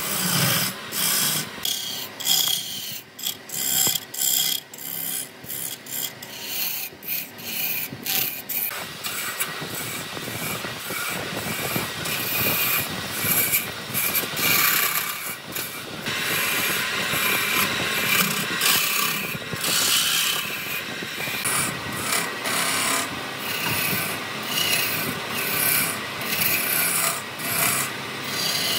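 A tool scraping and rasping against wood. It comes in separate strokes at first, then turns denser and more continuous.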